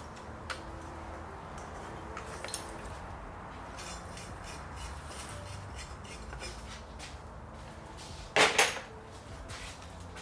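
Metal tools and engine parts clinking during hand work on an engine, with faint ticks and then a louder clatter of two or three metal knocks a little over eight seconds in.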